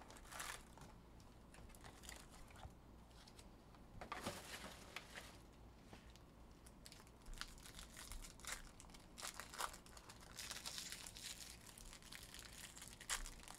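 Faint crinkling and tearing of trading-card pack wrappers as they are handled and opened, in scattered short bursts, with a longer stretch of crinkling near the end.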